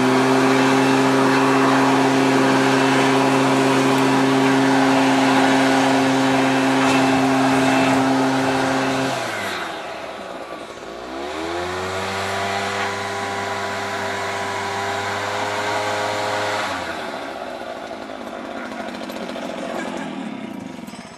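Echo 60cc backpack leaf blower's two-stroke engine running at full throttle. It drops off about nine seconds in, revs back up, and cuts back again about seventeen seconds in, leaving a softer rushing noise.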